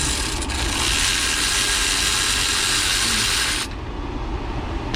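A steady hiss that cuts off abruptly near the end, over a constant low hum.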